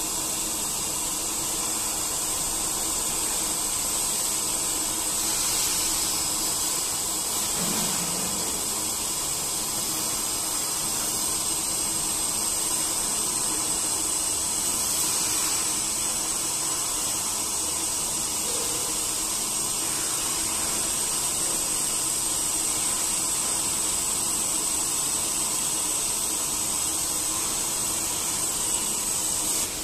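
GooDa TH-460NC twin-head duplex milling machine with two opposed face-milling cutters cutting opposite sides of a steel block at once: a steady hissing machining noise with a high whine over it.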